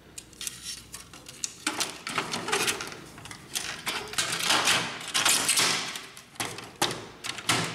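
Plastic parts of a Canon inkjet printer being handled and fitted together: the control panel's plastic housing knocking, scraping and clicking against the printer body in irregular bursts.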